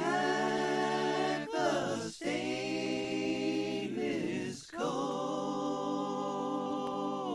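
Intro jingle of several voices singing a cappella in long held chords, with two short breaks, about two seconds in and again about four and a half seconds in.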